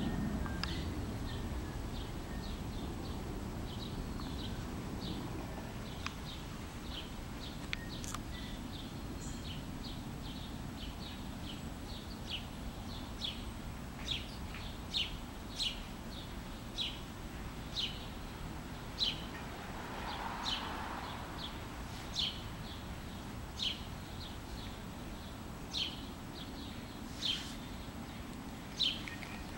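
Fledgling American robin giving short high chirps, one to two a second, growing louder about halfway through, over a steady low background rumble.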